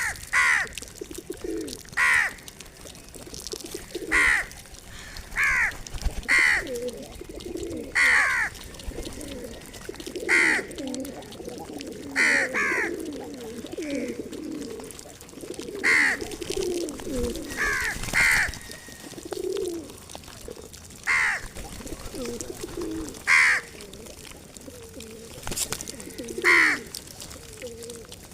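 Pigeons cooing in a continuous low, wavering chorus, with a crow's loud short caws repeating every one to three seconds above them.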